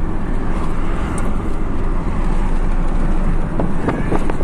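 Car cabin noise while driving: a steady, loud road and engine rumble, heaviest in the low end. A few brief sounds rise over it near the end.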